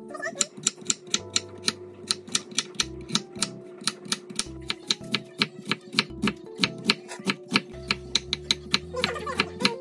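Kitchen knife chopping potato and onion on a wooden cutting board: quick, even knocks of the blade on the board, about four a second, over soft background music.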